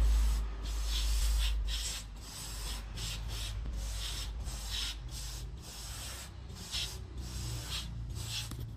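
Aerosol spray can with a straw nozzle hissing in about a dozen short bursts as it is sprayed onto a car's front wheel hub and studs. A low rumble runs underneath, strongest in the first two seconds.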